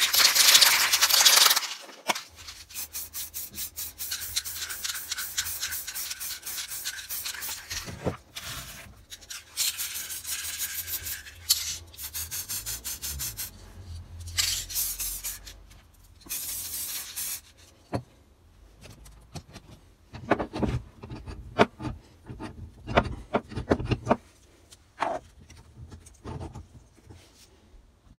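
Aerosol can of black spray paint hissing in several short bursts, the first and longest lasting about two seconds. Between the bursts come runs of quick, even rattling clicks, the mixing ball in the can being shaken.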